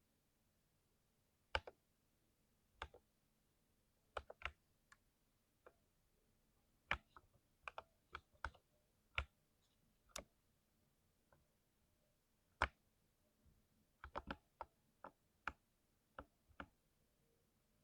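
Keystrokes on a mechanical keyboard with lubed tactile switches and thick keycaps. Single keys are pressed at an irregular, unhurried pace, each a short sharp clack, with a few quick bunches of presses around four seconds in and again near fourteen seconds.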